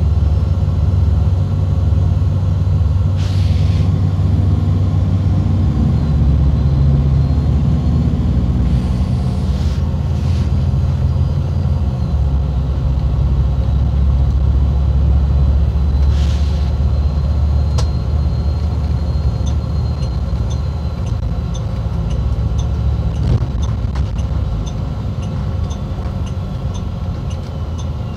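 Engine and road noise of an MCI D4505 motor coach heard from inside the cabin while it drives, a steady low rumble with a few short hisses. About two-thirds of the way through, a turn signal starts ticking, about one and a half ticks a second.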